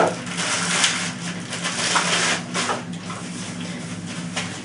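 Rifle scope packaging being opened and handled: rustling and crinkling of cardboard and plastic with a few sharp clicks, strongest at the start, over a steady low hum.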